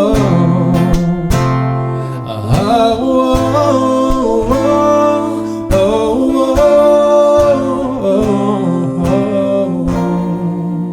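Acoustic guitar strummed through the song's closing bars, with held wordless singing over it. A last strum about ten seconds in rings on and begins to fade.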